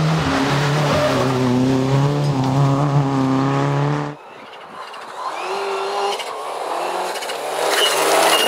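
Rally car engines at full attack. One car's engine revs hard, rising and falling, then cuts off abruptly about four seconds in. A second car then approaches and grows louder, with a brief high squeal near the end.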